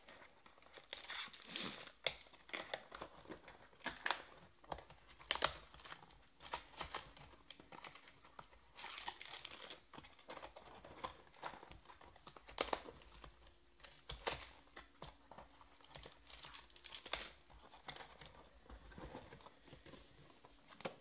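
Trading cards and foil pack wrappers handled close up: irregular crinkling and rustling with light clicks and taps of card stock, with longer crinkles about nine and seventeen seconds in.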